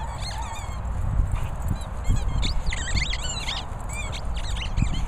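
Dogs playing on a lawn: irregular low thuds and scuffles from paws and bodies. Over them runs a string of quick high chirps, busiest in the middle.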